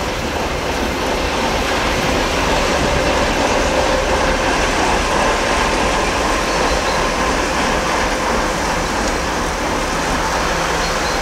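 Diesel locomotive running on its own along the station tracks: a steady rail and engine noise with a held high whine over it.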